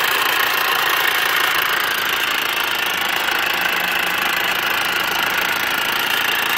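R53 MINI Cooper S's supercharged four-cylinder engine running steadily with a loud clattering rattle from the supercharger. An abnormally loud rattle like this is a warning sign of a supercharger about to fail.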